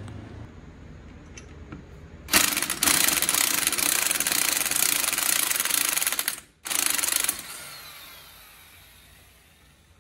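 Corded electric impact wrench driving the forcing screw of a bearing puller to pull a bearing off a ring gear. It starts about two seconds in and runs hard for about four seconds, stops briefly, gives one short second burst, then winds down with a falling whine.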